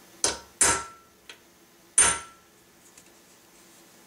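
A hammer striking a steel punch set on the head of a cut nail clamped in a bench vise: three sharp metallic blows, two quick ones then a third over a second later, the later blows ringing briefly. The punch is drawing the nail's head out into an 18th-century-style pyramid, working one side at a time.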